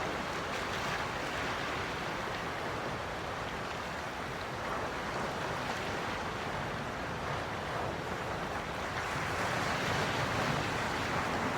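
Quiet ocean waves washing in, a steady rush of surf that swells a little louder near the end.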